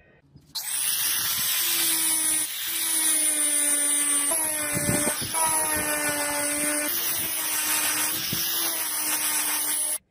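Angle grinder with a felt buffing wheel polishing a steel sword blade: a steady motor whine over a hissing rub. It starts about half a second in, steps slightly in pitch a few times, and cuts off suddenly just before the end.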